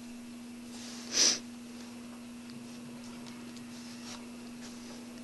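One short, sharp sniff about a second in, over a steady low hum.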